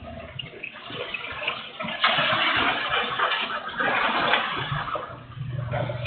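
Heavy rain and wind picked up by a CCTV camera's microphone: a rushing noise that swells about two seconds in and eases off a little over two seconds later.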